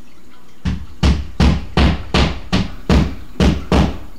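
A quick run of nine sharp knocks, about three a second, starting under a second in and stopping near the end.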